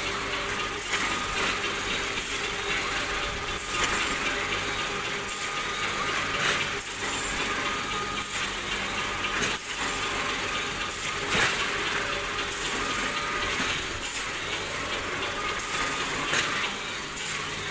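Palletizing line running: a robot arm and roller conveyor handling sacks, a steady mechanical din with hiss. Scattered clanks and knocks come every few seconds, and a faint high tone comes and goes.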